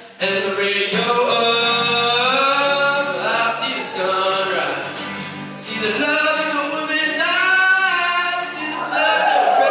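Vocal group singing in harmony, a cappella, with a dip at the very start and then held, sliding sung notes throughout.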